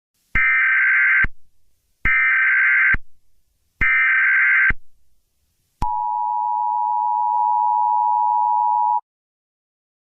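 Emergency Alert System signalling: three short bursts of warbling data tone about a second apart, then the steady two-tone attention signal for about three seconds, cutting off sharply.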